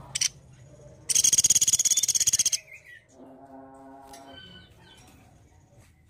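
Sunda pygmy woodpecker giving a loud, rapid rattling trill lasting about a second and a half, preceded by a short sharp call right at the start.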